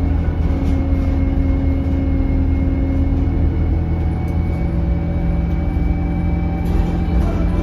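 Alexander Dennis Enviro200 bus's diesel engine running steadily under way, heard from inside, with a steady high turbo whistle over it, which the owner of the recording puts down to a turbo leak.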